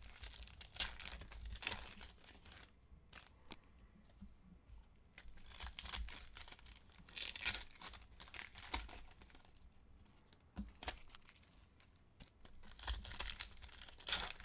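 Foil trading-card pack wrappers crinkling and tearing as packs are ripped open and the cards handled. The rustling comes in three bunches: at the start, in the middle, and near the end.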